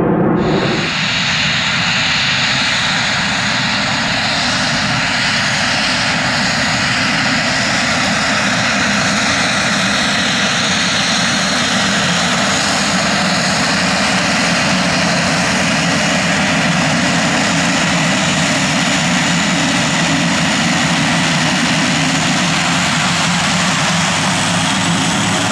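Pilatus PC-12 single-engine turboprop taxiing, its engine running steadily: a high, even turbine whine over a low propeller drone.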